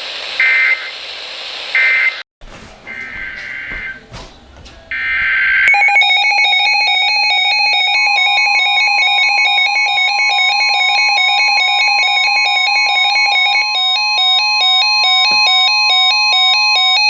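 Emergency Alert System tones from broadcast radio: first a couple of short, harsh digital data bursts of an alert header, then after a brief cut more of these bursts over radio hiss. About six seconds in, a loud steady two-note electronic attention tone starts and runs for roughly eleven seconds, with a second steady tone joining about two seconds after it starts.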